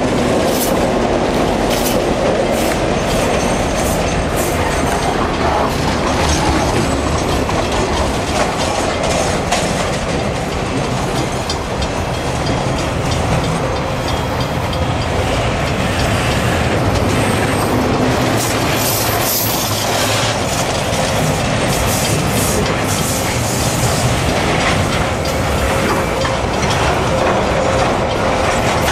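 Container wagons of a freight train rolling past close by, their wheels clattering steadily over the rail joints, with occasional thin high wheel squeals on the curve.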